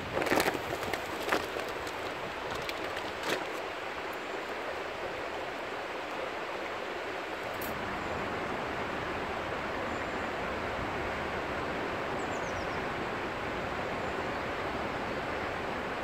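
Six Mile Water river flowing, a steady rush of running water. A few sharp knocks sound in the first few seconds.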